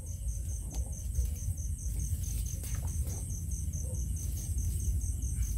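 Cricket chirping in a steady high-pitched rhythm, about four pulses a second, over a low steady rumble.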